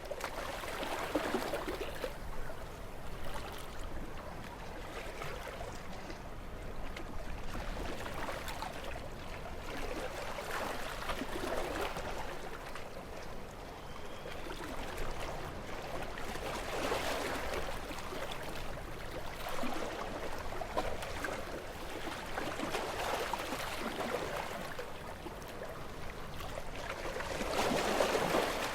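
Gentle sea waves breaking and washing up on a beach, swelling and fading every few seconds, with the largest wave near the end.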